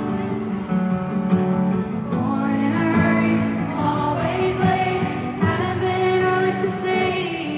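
Live band music in an arena, recorded from the crowd: acoustic guitar and band, with a woman's lead vocal coming in about two seconds in.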